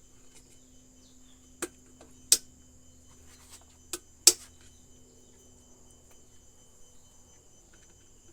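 Sharp clicks and knocks of plastic and metal parts being handled while an electric kettle's thermostat switch is worked on: four in all, two of them close together near the middle, the last the loudest. A steady high trill of insects continues underneath.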